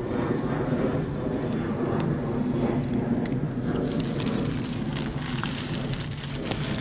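Steady rushing noise with a low rumble and a hiss, dotted with scattered small clicks.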